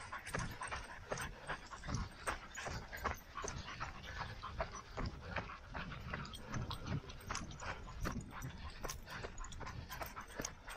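Running footsteps on a trail, an uneven patter of thuds and crunches, with panting breath.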